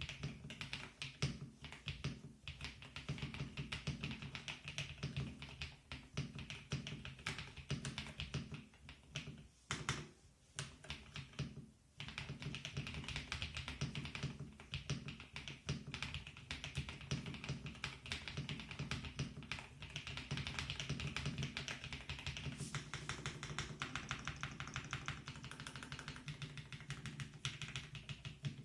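Royal Kludge RKR75 mechanical keyboard being typed on in a fast, continuous stream of keystrokes, with short breaks in the typing about 10 and 12 seconds in.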